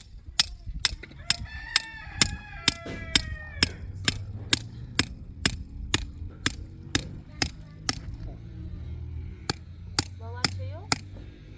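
Sharp, evenly spaced hammer blows, about two a second, stopping about eight seconds in and resuming for a few strokes near the end. A bird honks with falling calls from about one to nearly four seconds in, and short rising calls come near the end.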